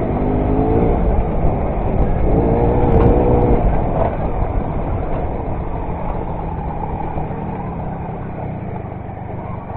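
Derbi Variant moped's small two-stroke engine running under throttle on a rough trail, its note picking up twice in the first few seconds, then easing off and growing quieter. A low rumble runs underneath throughout.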